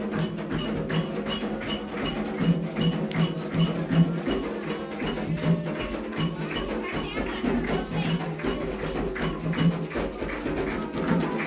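Candomblé ritual percussion: atabaque hand drums played continuously, many dense strokes over a steady metallic bell pattern of about three strikes a second, typical of an agogô keeping the time line.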